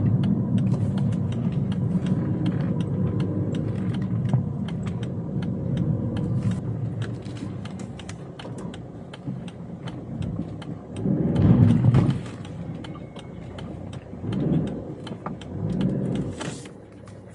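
A car driving, heard from inside the cabin: a steady low road and engine rumble that fades as the car slows down, with many small ticks and clicks throughout. Three louder surges come about two-thirds of the way through and twice more near the end.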